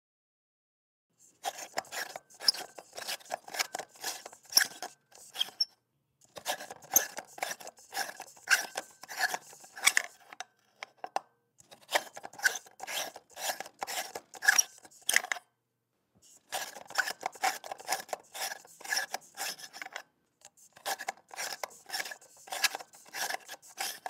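A light bulb being unscrewed from its socket: its screw base turns in the socket threads with rapid squeaky, rasping creaks. The creaking comes in five bouts of turning, with short pauses between them.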